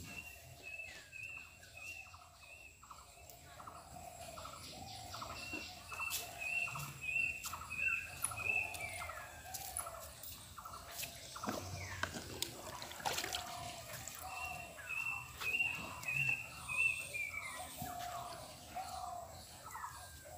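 Birds calling in runs of short, high, repeated notes, two or three a second, with lower wavering calls between. A few sharper, louder sounds come from a cow drinking water from a plastic bucket.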